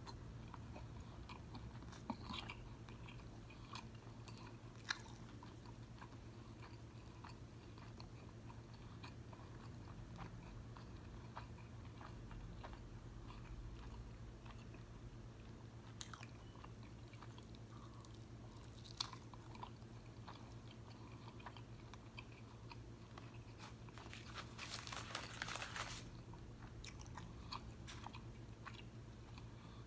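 Close-miked chewing of a steak street taco: soft wet chewing with scattered mouth clicks and smacks, and a denser stretch of crunching near the end. A faint steady low hum sits underneath.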